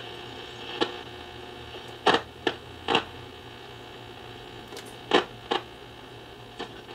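Vintage GE AM clock radio humming through its speaker, tuned off-station as the tuning knob is turned, with a string of short sharp crackles about a second in and again around two, three and five seconds in.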